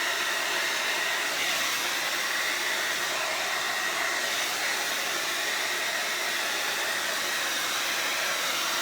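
Handheld hair dryer running steadily on its high setting: a continuous rush of air with a faint steady whine in it.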